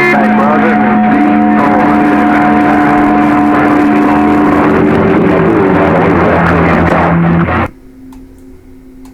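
Guitar music coming over a CB radio channel, steady and loud, cutting off suddenly about seven and a half seconds in; a faint steady low hum remains after it.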